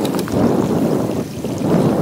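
Wind buffeting the microphone in uneven gusts, with a few faint crackles near the start.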